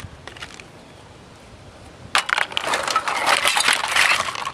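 Debris from a smashed coffee maker crunching and rattling as it is shifted: a crackle of many small clicks that starts about two seconds in and lasts about two seconds.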